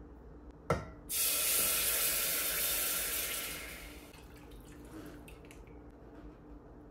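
A sharp click, then water running from a kitchen tap for about three seconds before it is turned off, followed by a few small drips and knocks.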